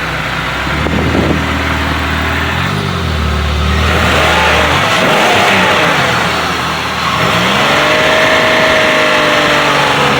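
Freshly rebuilt 3.8-litre V6 of a Pontiac Bonneville running just after its first start, its revs rising and falling several times. The engine runs smoothly.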